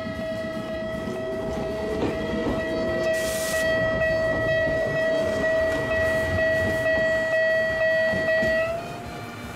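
Level-crossing alarm bell ringing at one steady pitch while an electric train runs past; the ringing stops near the end.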